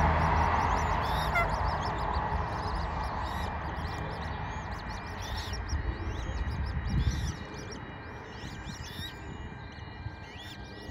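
Eurasian coot chicks calling with many short, high, thin peeps. Under them is a rushing noise that fades and stops about seven seconds in.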